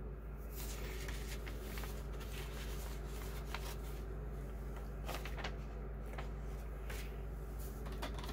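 Quiet room tone with a steady low hum, broken by faint scattered clicks and light paper rustles.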